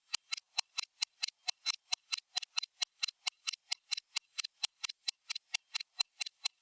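Stopwatch ticking sound effect: crisp, high-pitched clock-like ticks at an even pace of about four a second.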